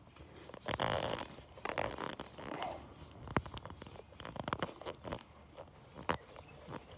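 Clear wire-reinforced vinyl hose being twisted and forced onto a fitting: a tight, stiff fit. Irregular rubbing and scraping rasps, with a few sharp clicks.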